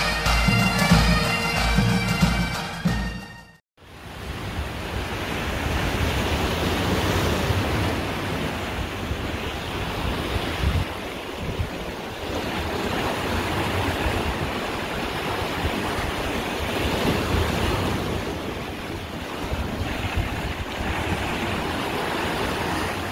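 Bagpipe music that cuts off suddenly about three and a half seconds in, followed by a steady wash of sea surf and wind, with wind rumbling on the microphone.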